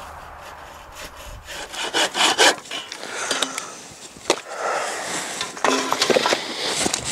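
Dry sticks and wood scraping and crackling in irregular strokes, beginning about two seconds in and loudest soon after and again near the end.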